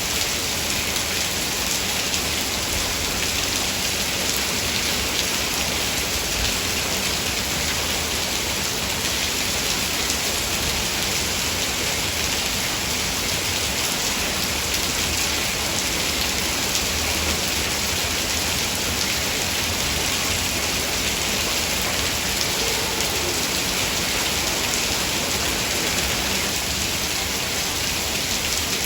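Heavy rain falling steadily, a dense even hiss of many drops with no lulls or thunder.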